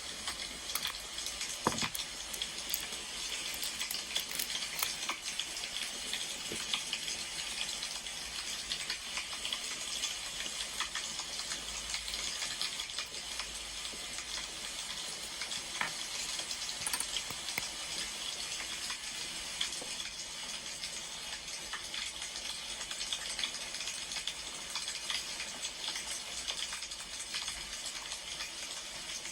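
Wood fire crackling steadily: a constant hiss dotted with many small pops and snaps.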